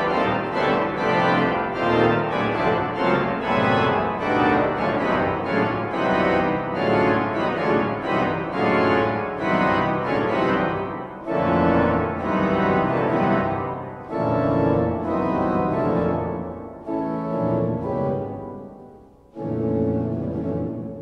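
Church organ playing with full, loud registration: fast, dense passagework, then from about eleven seconds in a series of sustained chords broken by short breaks. The church's reverberation fades away in the gaps.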